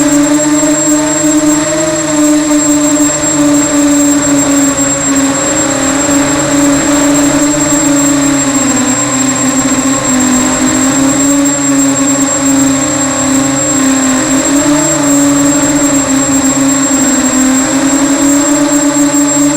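Electric motors and propellers of a small FPV multirotor drone buzzing steadily, the pitch wavering up and down with throttle changes, with a thin steady high whine above it.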